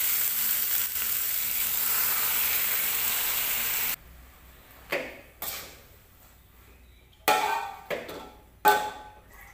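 Water spinach sizzling loudly in hot oil in an aluminium wok, cutting off abruptly after about four seconds. Then a few sharp, ringing clanks of metal cookware, the loudest near the end.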